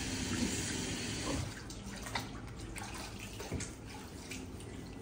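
Water in a foot-bath basin: a steady watery rush for about the first second and a half, then scattered small splashes and drips as feet move in it.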